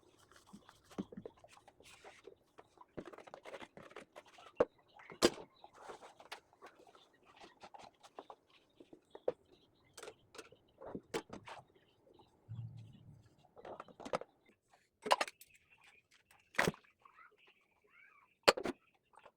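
Irregular sharp clicks and knocks of household items being handled, with several louder knocks.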